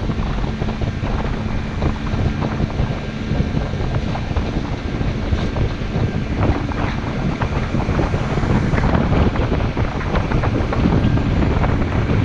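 Wind buffeting the microphone aboard a metal motorboat under way, over the steady drone of its motor and water knocking against the hull.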